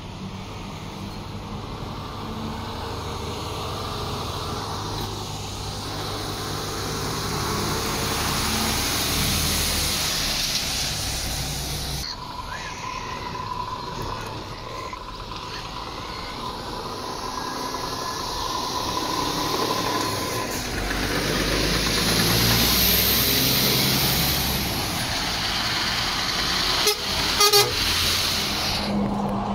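Heavy lorries drive past one after another, their diesel engines running and swelling as each one goes by. Near the end there are two short horn toots.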